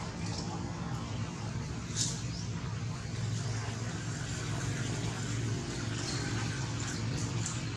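Steady low outdoor background hum, like distant engine or traffic noise, with a few faint short high ticks.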